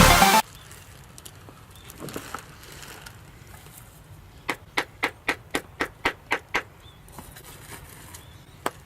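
Background music cuts off just after the start. Then, over a faint outdoor background, a quick run of about nine sharp knocks, about four a second, and two more near the end.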